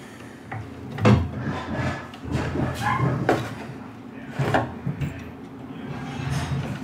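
Light knocks and clicks from hands working small parts on a model airplane engine: the throttle arm and control-rod connector on the carburetor. Several separate knocks, the loudest about a second in and again about four and a half seconds in.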